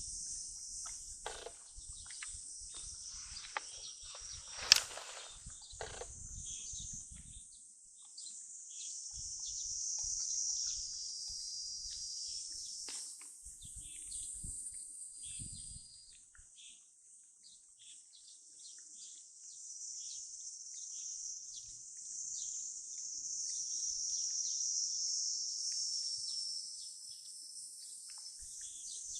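A steady, high-pitched insect chorus chirring throughout, with one sharp click about five seconds in and low rumbling on and off in the first half.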